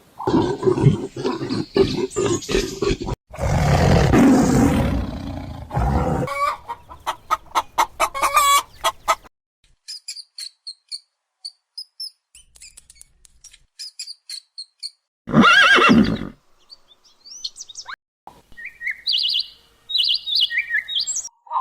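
A run of different animal calls, one after another. Loud, rough, low calls fill the first six seconds and are followed by a rapid rattling. Sparse high chirps come next, then a single loud call about fifteen seconds in, and bird-like chirping near the end.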